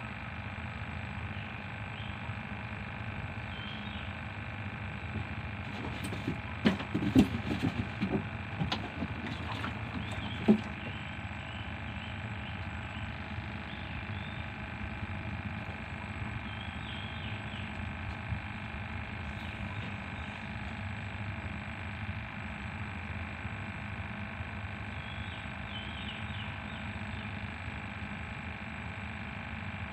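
A steady droning hum with a cluster of knocks and clatters from handling gear in a small wooden boat between about six and eleven seconds in, the loudest a single sharp knock near the end of that cluster.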